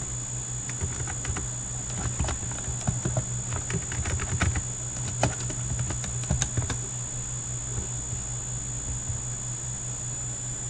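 Computer keyboard typing: irregular clicks of keys being struck, which stop about two-thirds of the way in. Under them runs a steady low electrical hum and a high-pitched whine.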